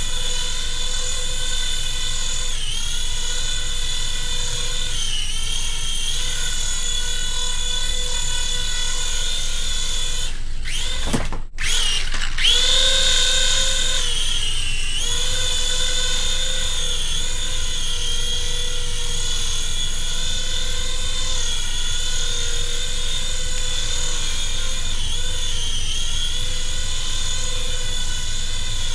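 Small electric rotor motors of a Hasbro remote-control Republic gunship toy helicopter whining steadily in flight. About eleven seconds in, the whine sags and cuts out for an instant, then spins back up with a rising pitch.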